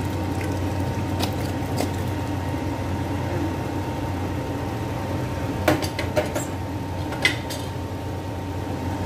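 A spatula stirring chicken curry with coconut milk in a pan, giving a few sharp knocks and scrapes against the pan, the loudest about two thirds of the way through. A steady low hum runs underneath.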